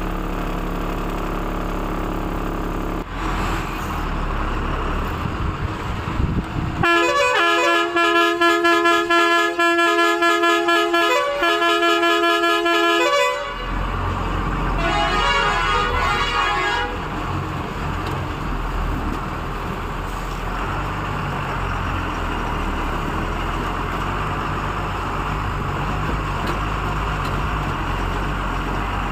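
Truck engine running steadily while a multi-tone truck horn sounds in rapid pulses with shifting pitch for about six seconds, then again briefly a little later.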